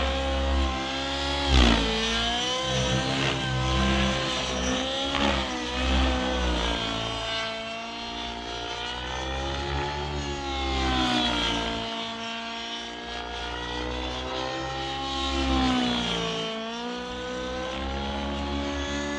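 The O.S. 91HZ-R two-stroke nitro engine of a 700-size RC helicopter, with a Speed 3D tuned pipe, running hard together with the rotor blades. Its pitch rises and falls over and over as the helicopter flies aerobatic manoeuvres, with sharp swoops about a second and a half in and again around five seconds in.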